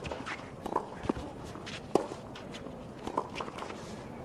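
Clay-court doubles tennis in play: sharp knocks of the ball being struck and bouncing, with players' shoes scuffing on the clay. The loudest hit comes about two seconds in.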